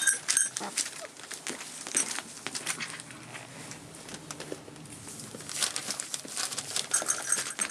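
Newspaper crinkling and rustling under rough collie puppies' paws as they move about on it, with scattered light clicks and scratches.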